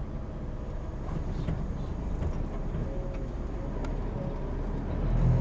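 Engine and road noise inside a moving vehicle: a steady low rumble that grows louder near the end.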